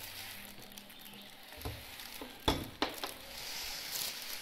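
A few light knocks and clicks from hands handling a plastic bag of food and things on a kitchen counter, the sharpest about halfway through, over low room noise.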